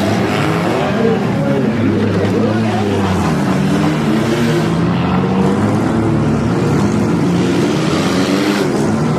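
Several demolition derby cars' engines running and revving at once, their pitches rising and falling over one another in a steady, loud din.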